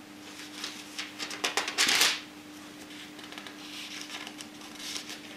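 Thin Bible pages being leafed through and turned, with a quick cluster of rustling flicks about two seconds in and softer page rustles near the end. A faint steady hum lies underneath.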